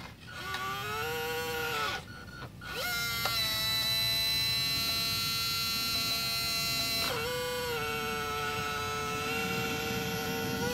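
Electric drive of a 1/14-scale radio-controlled Doosan wheel loader whining as it drives and raises its bucket. The whine rises in pitch, breaks off about two seconds in, then starts again and holds steady, dipping briefly about seven seconds in.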